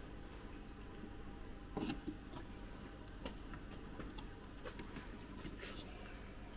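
Faint handling noise: a few scattered light clicks and rustles as hands press driftwood against clay and squeeze a glue bottle, with one louder rustle about two seconds in, over a low steady room hum.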